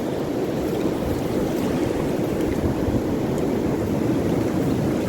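Steady rushing of wind buffeting the microphone, mixed with waves washing on the shore.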